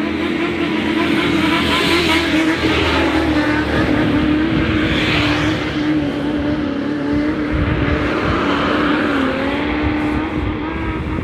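A car running close by with a loud engine note held fairly steady, wavering slightly up and down, along with road and tyre noise.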